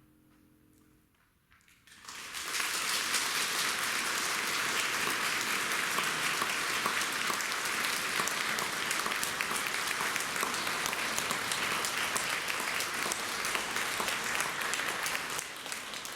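A concert audience applauding. The applause breaks in about two seconds in, after a faint held chord has died away, and thins slightly near the end.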